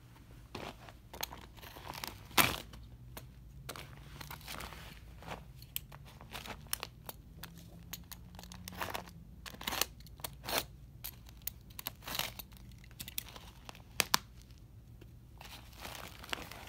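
Thin vinyl of an Intex beach ball crinkling and tearing as it is crushed under a boot: an uneven string of sharp crackles and rustles, with a loud snap about two seconds in and two sharp cracks close together near the end.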